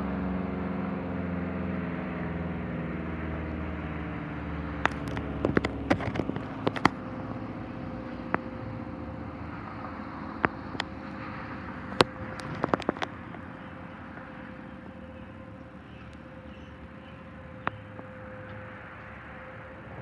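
ACA Allertor 125 rotating electromechanical siren winding down at the end of its test, its pitch falling as it fades over the first several seconds, with a faint steady tone left underneath. Sharp clicks come in clusters about five to seven seconds in and again about ten to thirteen seconds in, with one more near the end.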